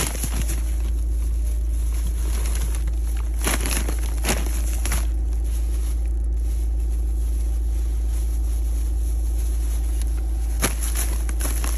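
Plastic bags rustling and crinkling as they are handled, in several brief bursts (a cluster around four seconds in and another near the end), over a steady low rumble.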